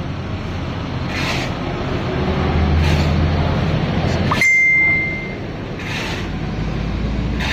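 An engine running with a steady low hum that swells about two seconds in. About four and a half seconds in, a short rising whistle settles into a clear high ringing tone, the loudest sound, held for about a second.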